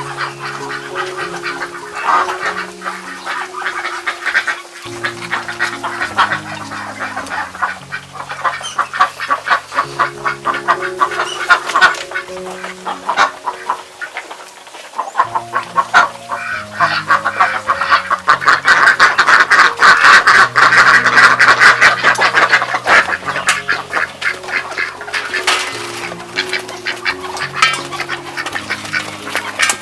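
A crowd of ducks quacking busily and continuously, loudest and densest just past the middle, over background music with a slow low melody.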